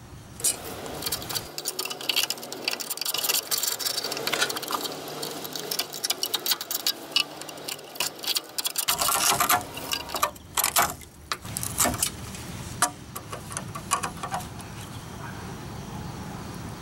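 A steel scraper scratching and chipping at the heavily rust-scaled nut of a car's outer tie rod end: a fast, irregular run of scrapes and clicks as loose flaking rust breaks away.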